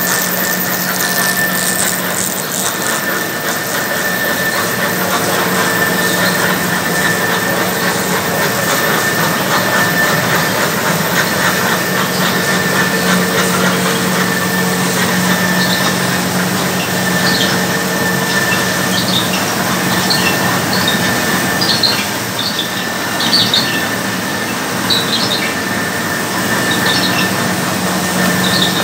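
LDPE extrusion lamination line running, a steady, loud machine hum with several constant tones over a dense mechanical noise. Short high squeaks come and go through the second half.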